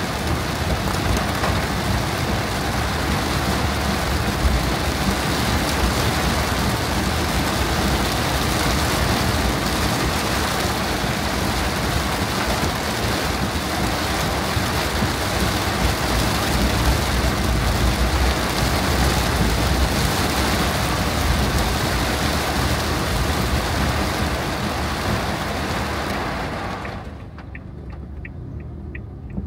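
Torrential rain beating on the roof and windscreen of a moving car, heard from inside the cabin. About 27 s in, the rain noise cuts off sharply as the car passes under an overpass, leaving the low sound of the car running with a few faint drips.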